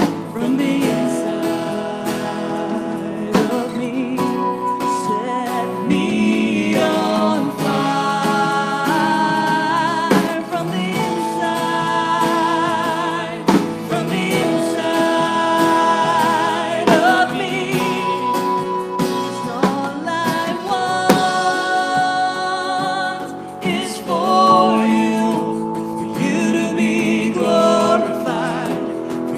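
A live worship song: a woman singing lead with vibrato over acoustic guitar and band accompaniment.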